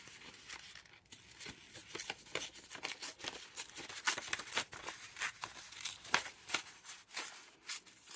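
Painted paper torn by hand, a quick run of many short crackling rips that picks up about a second in.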